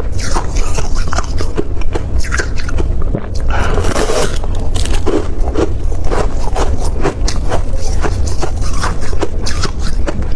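Freezer frost being bitten and chewed, a quick run of crisp crunches, with a longer scraping crunch about four seconds in. A steady low rumble runs underneath.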